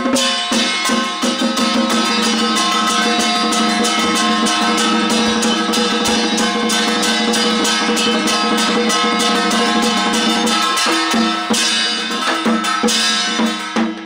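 Taiwanese temple ritual music: drums and gongs beating a fast, steady rhythm over a steady sustained pitched tone.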